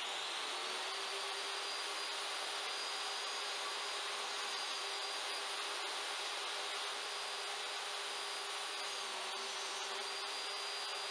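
Portable table saw running at speed, its motor giving a steady whine over an even hiss.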